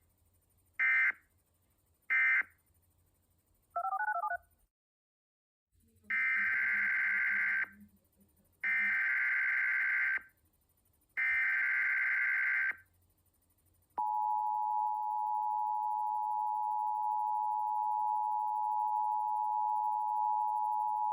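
Emergency Alert System tones: the last of three short SAME end-of-message data bursts, a brief warbling two-note blip, a second of silence, then three longer SAME header data bursts. About 14 seconds in, the steady two-tone EAS attention signal begins.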